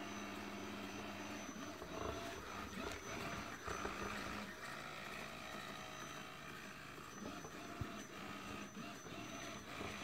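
Jisiwei robot vacuum running across a wooden floor while it seeks its docking station: a steady, fairly quiet motor hum with a thin high whine and a few light knocks.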